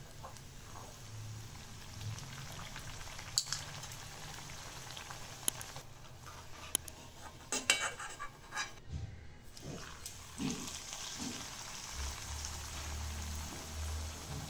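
Puris deep-frying in hot oil in a metal wok, sizzling steadily. Several sharp metallic clinks around the middle come from the slotted metal spoon against the wok as a fried puri is lifted out.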